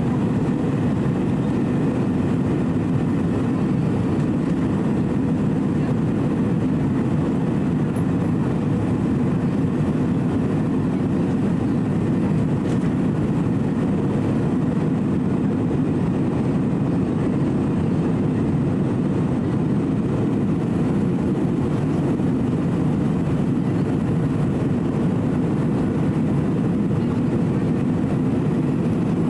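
Steady cabin noise inside an Airbus A320-200 in flight: a constant low drone from the engines and the air rushing past the fuselage.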